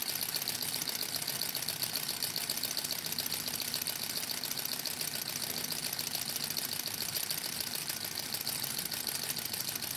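Small model Stirling engine, with a graphite piston in a brass cylinder and fired by an alcohol burner, running at a steady speed: a fast, even mechanical ticking of its piston and linkage as it turns the helicopter rotor slowly.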